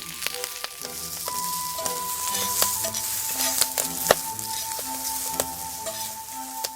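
Food frying in a frying pan over a campfire: a continuous sizzle with many sharp crackles and pops.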